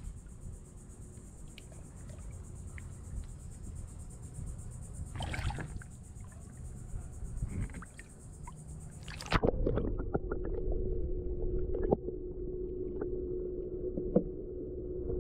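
Water splashing and sloshing as a snook is held at the surface for release, with insects buzzing steadily in the background. About nine seconds in, the sound goes suddenly muffled as it is heard from underwater, leaving a steady low hum and scattered clicks.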